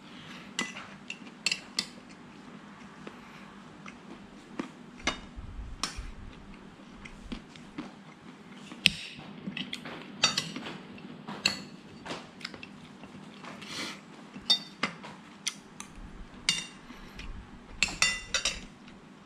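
Metal fork and spoon clinking and scraping against a ceramic plate while eating, in many sharp, irregular clinks with a brief ring.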